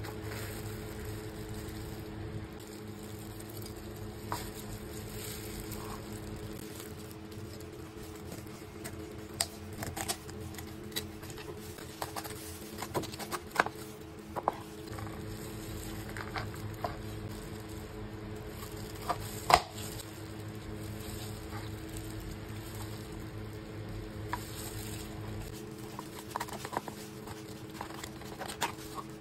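Cleaver cutting up a cooked whole chicken on a plastic cutting board: scattered sharp knocks of the blade on the board, the loudest about two-thirds of the way through, among soft wet squishing and tearing of the meat. A steady low hum runs underneath.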